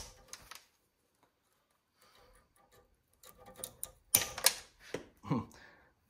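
Knipex CoBolt S compact bolt cutters snipping through old, gnarly barbed wire, with a few sharp metallic snaps and clicks about four seconds in.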